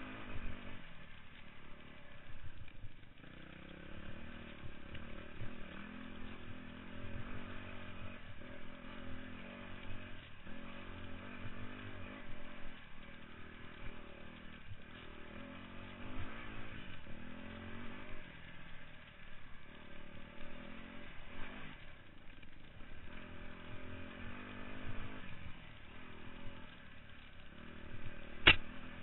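Dirt bike engine running under the rider, the throttle opening and closing over and over so the revs rise and fall every second or two. A single sharp knock near the end.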